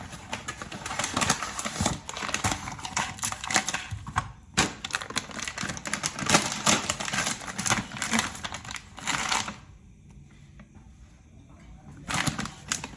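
Rapid clattering and clicking of kitchen items being handled and moved about. It stops about nine and a half seconds in, and a short burst of clatter comes again near the end.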